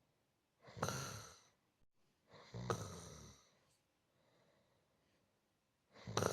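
A person snoring softly: three breath sounds, each about a second long, the middle one with a low rattle, and faint breathing in the pauses between them.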